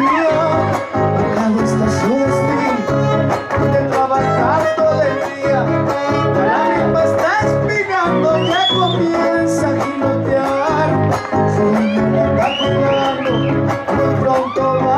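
Huasteco string trio playing an instrumental passage of a huapango. A violin melody with slides runs over the strummed rhythm of the jarana and the huapanguera.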